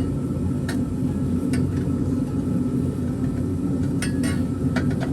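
A string of light metal clinks and taps as steel header sections are worked into place, over a steady low hum.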